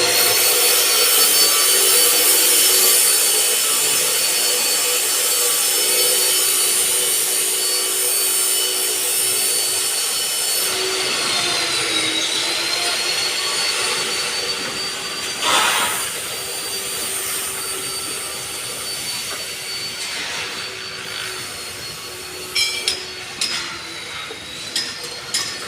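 A power tool running steadily with a high motor whine and a rasping cutting sound. Its pitch sags briefly twice as it takes load, and there are clattering knocks near the end.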